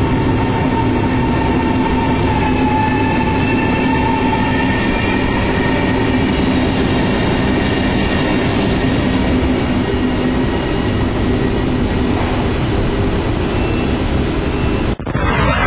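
Cisalpino electric tilting train at a station platform: a steady, loud rumble with several whining tones from its electric equipment. It cuts off abruptly near the end.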